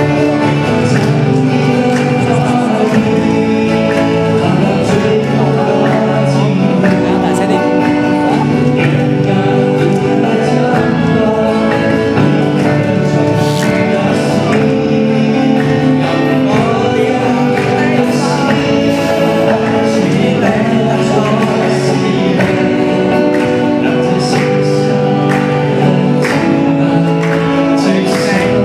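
Live Christian worship song: a male voice singing to two acoustic guitars.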